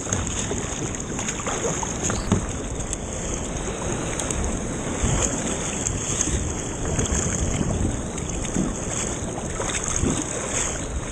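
Breaking surf washing around a sit-on-top plastic fishing kayak in shallow water, with waves splashing against and over its hull, steady and rushing, and wind buffeting the microphone. There is one sharp knock about two seconds in.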